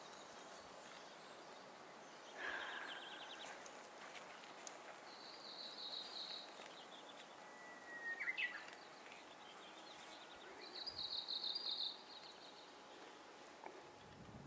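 Small birds calling: a few short, high, rapid trills, the loudest near the end, with a brief whistled note about eight seconds in, over a faint steady hiss.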